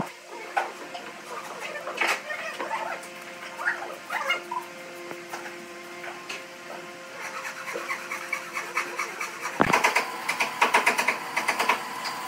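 Pine boards and a glue bottle handled on a wooden workbench fitted with pipe clamps: scattered knocks and clicks over a faint steady hum. About ten seconds in comes a sharp thump as wood is set down, followed by a run of quick clicks.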